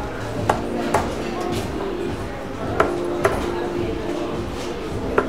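Steel-tip darts striking a Winmau Blade 5 bristle dartboard: a handful of short, sharp thuds spread over a few seconds, over a steady background of room noise.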